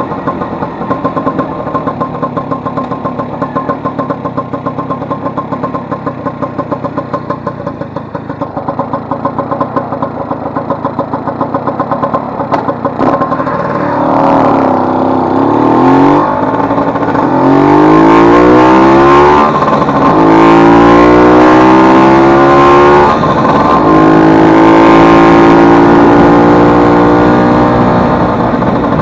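Vespa 150's single-cylinder two-stroke engine idling with an even pulse. Partway through it is opened up, its pitch climbing in four rising sweeps that drop back between them, like pulling away through the gears.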